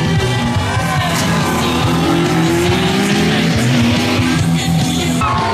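Loud music with sustained low notes, with gliding higher sounds over it.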